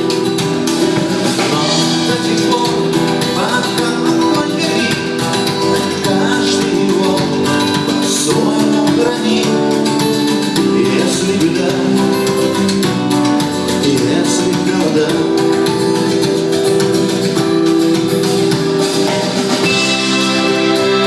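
Live band music with guitar, played at a steady, even loudness throughout.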